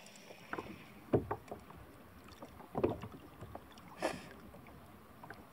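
A handful of separate knocks and clunks of fishing gear being handled on a plastic sit-on-top kayak, over faint water and wind.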